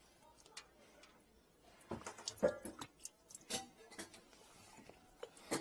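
Scattered light clicks and knocks of hands and tools working at a floor-heating distribution manifold's fittings, starting about two seconds in, with one brief metallic ring among them.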